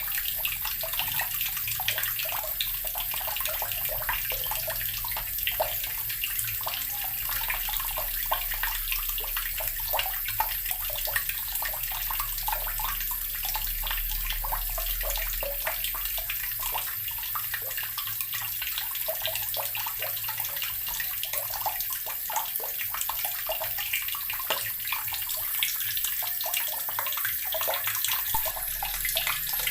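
Water pouring from a tap into an earthen barrel, a steady stream of splashing and gurgling.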